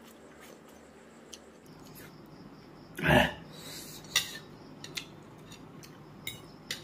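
Faint noodle-eating sounds, then a short loud throat or breath sound from the eater about three seconds in, followed by a few light clinks of a metal fork against a ceramic plate.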